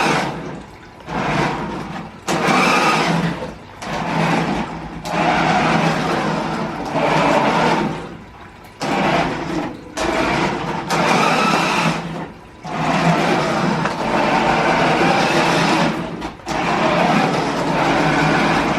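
Toy RC drift car running in repeated bursts of throttle: the electric motor and gears whine with tyre noise, stopping and starting again many times.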